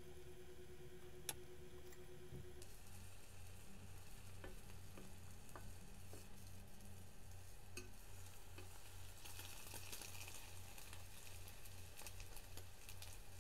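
Egg frying with a faint sizzle in an electric skillet, growing a little stronger in the last few seconds, with a few light clicks of chopsticks against the pan. A low hum pulses steadily underneath from a few seconds in.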